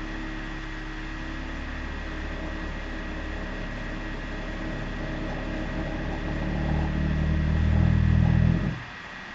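Vaillant ecoTEC plus 438 gas combi boiler droning and vibrating: a low, steady hum of several tones that swells louder over the last few seconds, then stops suddenly near the end. A faint steady high tone carries on underneath.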